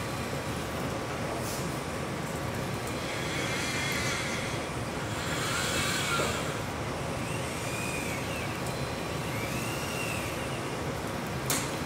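Electric joint actuators of a humanoid robot whining as its arms move, several short whines each rising and then falling in pitch, over a steady mechanical hum. A single sharp click near the end.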